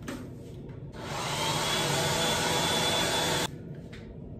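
Handheld hair dryer switched on about a second in, blowing steadily with a faint high whine, then switched off suddenly after a few seconds.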